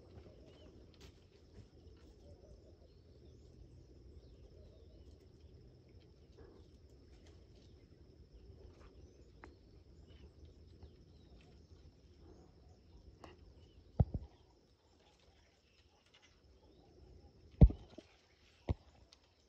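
Kittens scrambling on a weathered wooden trellis: a quiet background with a faint steady high whine, broken by sharp knocks of paws and bodies on the wooden rails, one about two-thirds of the way through and two more close together near the end.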